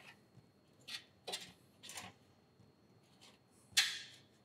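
Handling noise of hoses and fittings being worked: a few short scraping and rubbing strokes, the loudest near the end.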